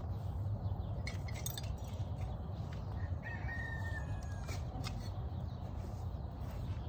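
A rooster crowing faintly: one thin held call about three seconds in, over a steady low rumble of wind on the microphone. A few sharp clicks of saddle and tack come as the rider gets off the horse.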